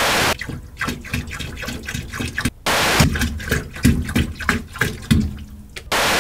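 Three short bursts of TV static, at the start, in the middle and near the end. Between them, eggnog is poured from a carton into a man's mouth, splashing and gurgling.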